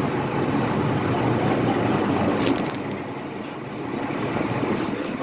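Boat engine running slowly while coming in to dock, a steady low rumble. A few sharp clicks come about two and a half seconds in, after which the sound turns quieter.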